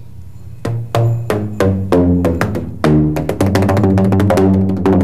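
A row of tuned metal tubes of different lengths struck on their open tops with a flat paddle, each strike giving a short pitched note, lower for the longer tubes. Single strikes come about three a second after a short pause, then a quicker run of notes from about three seconds in.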